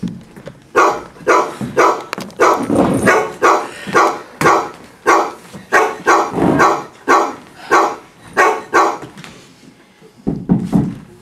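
A dog barking in a steady run of about two barks a second that lasts some eight seconds, then stops.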